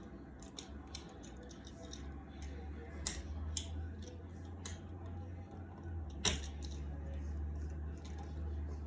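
Scattered small clicks, taps and scrapes of wire and a wall light switch being handled while the wires are fitted to the switch, with a sharper click about three seconds in and another about six seconds in, over a steady low hum.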